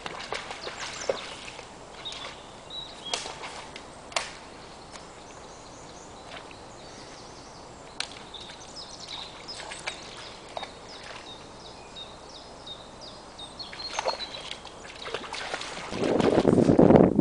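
Quiet waterside ambience with occasional sharp snaps as a dog picks its way over a pile of branches, and faint bird chirps. About a second before the end, wind buffets the microphone loudly.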